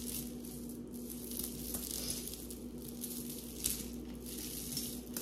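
Steady low electrical hum with an even hiss of room noise, and a faint click about three and a half seconds in.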